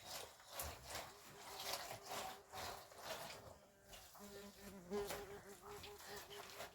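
A flying insect buzzing close by: a thin, wavering hum that starts about a second in and holds on, with a lower buzz joining briefly past the middle, over soft scattered taps and scrapes.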